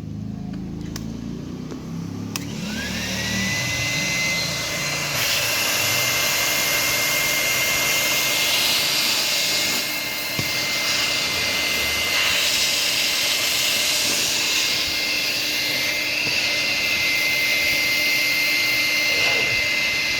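Vacuum cleaner starting up: about two and a half seconds in, its motor whine rises and settles into a steady high whine. It then runs on steadily with loud rushing air.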